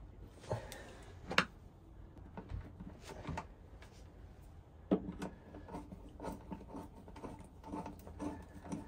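Faint handling noises of wiring work: small clicks and rubbing as short ferruled cable ends are worked into the screw terminals of a solar charge controller, with a sharper click about a second and a half in and a knock near the middle.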